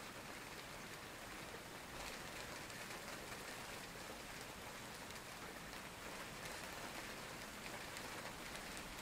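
Steady rain, a soft even hiss with faint scattered drop ticks, a little heavier from about two seconds in.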